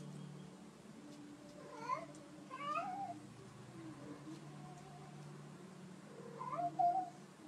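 Domestic cat yowling while pinned beneath a dog that is mounting it: drawn-out meows that rise and fall in pitch, a pair about two seconds in and the loudest pair near the end.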